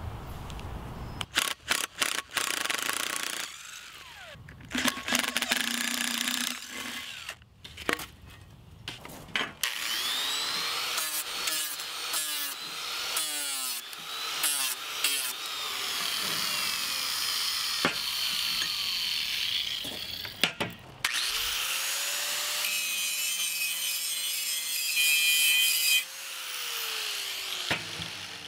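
Angle grinder grinding rusty scrap steel in several short stretches, its motor whine rising and falling as the disc bites and spins down. A few sharp knocks near the start.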